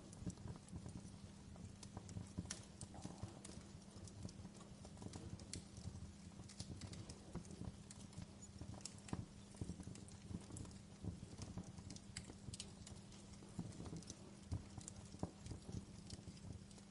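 Wood fire crackling in a fireplace: frequent, irregular sharp pops and snaps over a steady low background.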